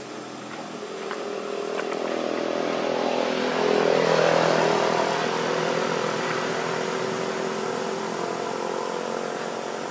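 A motor vehicle's engine passing along a road, growing louder to a peak about four seconds in and then slowly fading away.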